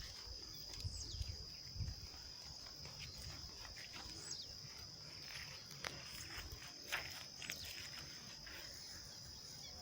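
Faint, steady high-pitched trilling of insects in an evening chorus, with a few short falling chirps and scattered clicks over it.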